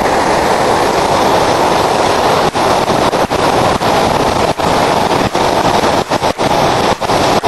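Loud, steady rush of a waterfall, an even roar of falling water with a few brief dropouts.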